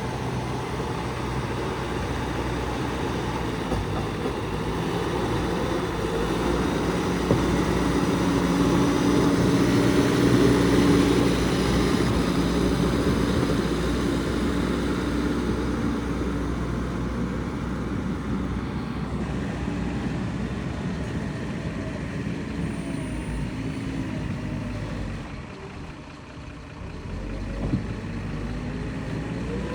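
Heavy diesel machinery running under load, the engine note swelling about a third of the way through and then easing off, with a single sharp knock near the end.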